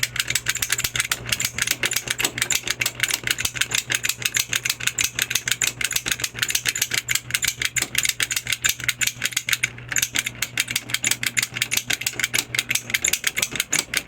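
A door lock being raked with a lock pick: fast, even metallic clicking and rattling at several clicks a second, briefly pausing near the middle, as the lock fails to open. A steady low hum lies underneath and stops near the end.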